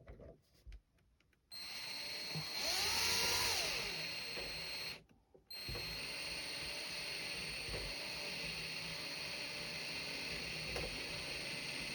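Small electric drill whining steadily as it bores a propeller-shaft hole through a plastic model ship hull. It starts a moment in, is loudest for a couple of seconds, cuts out briefly near the middle and then runs steadily again.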